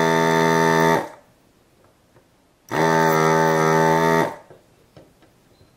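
Electric desoldering gun's vacuum pump buzzing steadily at one pitch while the trigger is held, sucking molten solder from a circuit-board joint. It runs to about a second in, stops, then runs again for about a second and a half from just under three seconds in.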